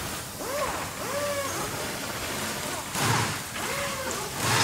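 Factory manufacturing ambience: machinery noise with several short squeals that rise and fall in pitch, and two louder bursts of hissing noise with a low thud, about three seconds in and near the end.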